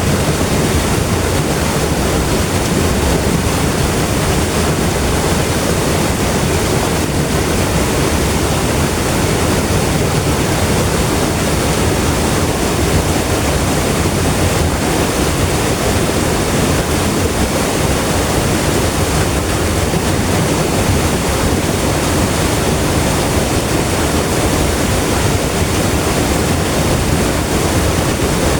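River water rushing and flowing steadily, a continuous even roar with no distinct splashes.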